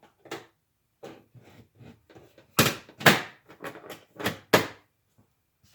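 Hand tools clattering and knocking as they are rummaged through and picked up: a run of irregular sharp knocks, the loudest four close together in the middle.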